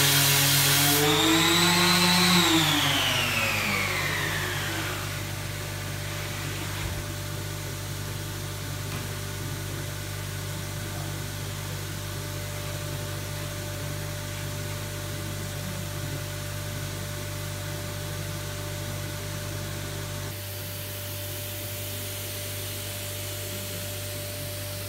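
A random orbital sander running and then switched off, its whine sliding down in pitch over about three seconds as it spins down. A steady machine hum then carries on, from the dust extractor hooked to the sander's hose.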